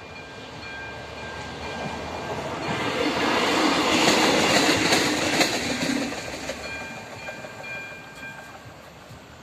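ČD class 814 RegioNova two-car diesel railcar passing close by over the level crossing. The noise of its engine and wheels swells to a peak about four seconds in and fades by about seven seconds. Behind it the crossing's electronic warning bell keeps ringing in a steady repeating pattern until near the end.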